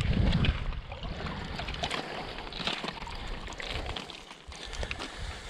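Water lapping at a rocky lakeshore under a steady low wind rumble, with a louder brushing thump in the first half second as a gloved hand rubs against the camera.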